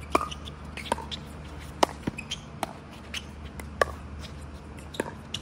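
Pickleball paddles striking a plastic pickleball back and forth in a doubles rally: a string of sharp pops, roughly one every second, the loudest about two seconds in.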